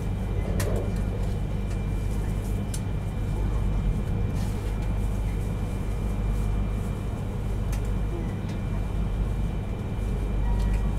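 Steady low rumble and running noise inside a Yamagata Shinkansen Tsubasa passenger car travelling at speed, with a faint steady high whine and a few light clicks.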